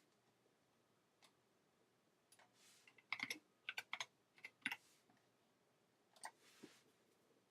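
Keystrokes on a small 60% computer keyboard: a few scattered key presses, then a quick run of them about three to five seconds in, and a couple more near the end.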